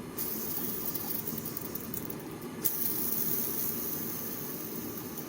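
Old NTN ball bearing from a Honda CBR600F4i clutch cover spinning, with a steady rushing, grinding noise; a fresh spin starts about two and a half seconds in. It is noisy and even growls, the sign of a rough, worn bearing.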